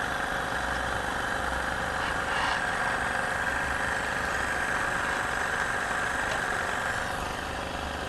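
Small steam engine running fast on steam from a home-built kerosene-gel-fired vertical boiler: a steady, rapid chuffing hiss, its exhaust steam piped up the boiler chimney to draw the fire. The hiss eases slightly about seven seconds in.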